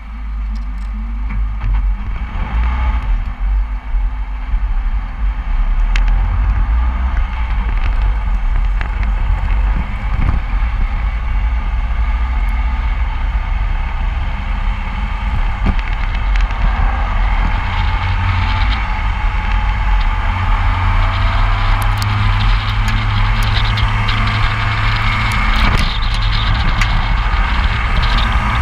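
Wind rushing over the microphone of a camera on a moving follow car, with the car's steady road noise. It builds over the first few seconds as speed picks up.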